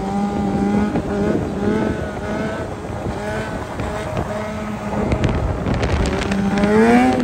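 Motorcycle engine running at a steady speed, its pitch wavering a little, then rising as it revs up near the end.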